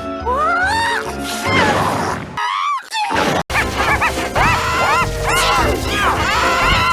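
Cartoon sneeze voice clip run through stacked audio effects: pitch-shifted, layered copies of the voice glide upward, cut out briefly, then warble up and down in quick repeated sweeps.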